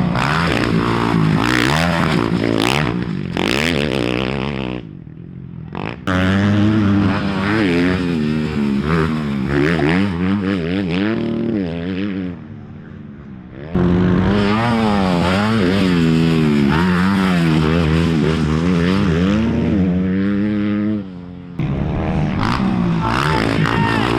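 Off-road racing motorcycle engine revving hard, its pitch rising and falling quickly as the throttle opens and closes, broken by a few abrupt quieter gaps.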